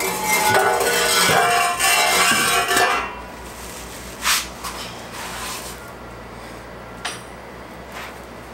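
Metal exhaust pipe scraping and clanking along a concrete floor as it is pushed under a car, ringing and rattling for about three seconds. Then a single knock about four seconds in and a faint click near seven seconds.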